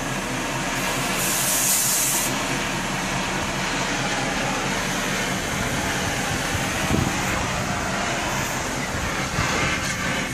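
Gas torch flame hissing steadily, with a sharper, higher hiss about a second in, over a low steady hum.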